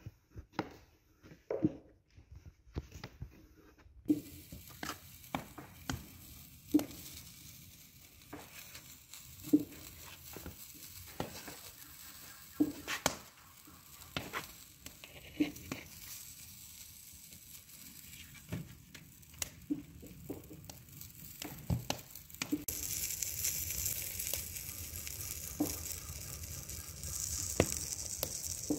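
A wooden rolling pin knocks and rolls on a wooden board for a few seconds. Then comes a steady sizzle of kutabs cooking on a hot iron saj griddle over a wood fire, with scattered clicks and knocks. The sizzle grows louder and hissier over the last several seconds.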